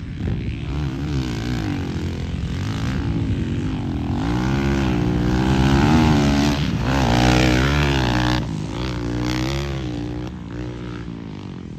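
Motocross dirt bike engine revving up and down as the rider works round the track. It is loudest about six to seven seconds in as the bike passes close, then fades away near the end.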